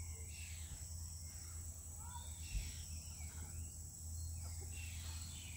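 Insects droning steadily at a high pitch, with short bird chirps here and there.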